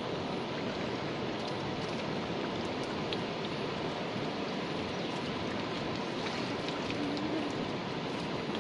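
Steady rain falling on a river surface, an even hiss.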